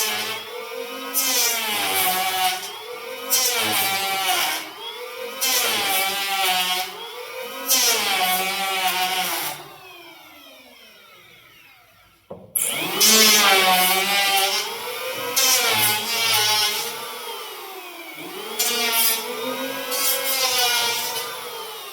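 Electric hand planer shaving wood in repeated passes, about one every two seconds; the motor's whine sags and recovers on each cut. About ten seconds in it spins down, then starts up again sharply a little after twelve seconds and carries on planing.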